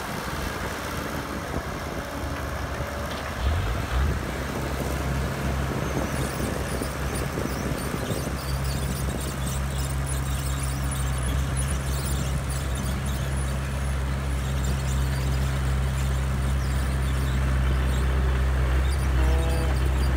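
Caterpillar 120B excavator's diesel engine running. It picks up load about three and a half seconds in, with a couple of knocks, then runs steadily and a little louder as the machine swings and tracks. A brief squeal comes near the end.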